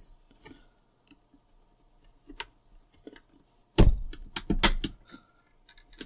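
Hard plastic clicks and knocks as the front piece of a VAX 2000 vacuum cleaner's handle is pushed and realigned onto the switch housing. Scattered light ticks, then a quick run of loud sharp clicks about four seconds in.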